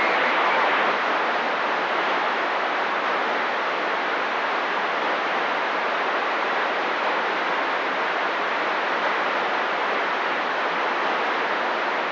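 CB radio receiver hissing with steady static between transmissions, a little louder for the first second.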